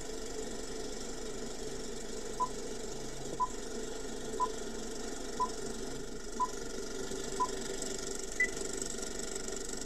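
Film projector running sound effect: a steady mechanical whirr and rattle. Over it come six short beeps a second apart, then one higher beep.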